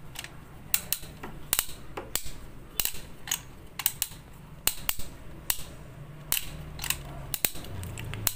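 Toy diecast crawler crane's winch gears clicking irregularly, about one or two clicks a second, as the hook line is wound up. The clicking comes from a winch gear that keeps sticking.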